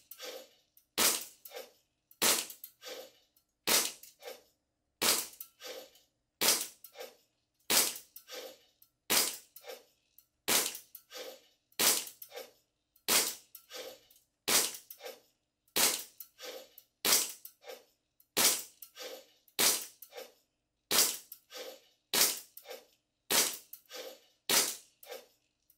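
Army Armament R604 Hi-Capa gas blowback airsoft pistol firing slow, steady single shots, about twenty of them, roughly one every second and a bit, each sharp pop followed about half a second later by a fainter click. It is firing SRC gas and 0.2 g BBs, fitted with a PDI inner barrel and Maple Leaf MR hop-up rubber, in a grouping test.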